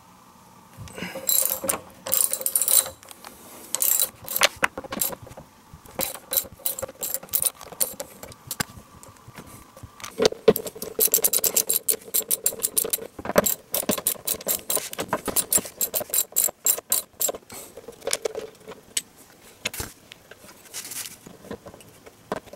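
Hand ratchet wrench clicking in runs of quick clicks as it loosens the bolts of the DeLorean's front sway bar bushing bracket, with light metallic clinks between runs.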